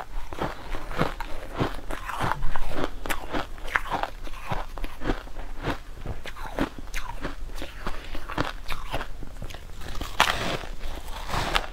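Mouthfuls of packed shaved ice being bitten and chewed: an irregular run of crisp crunches, a few a second, loudest about two and a half seconds in.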